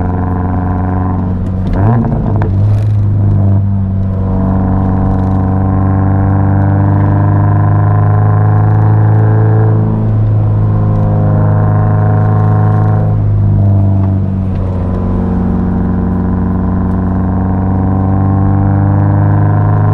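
Subaru BRZ's flat-four boxer engine pulling through the gears, its note rising steadily and then dropping briefly at each gear change: about 2 seconds in, around 10 seconds, and twice more around 13 to 15 seconds.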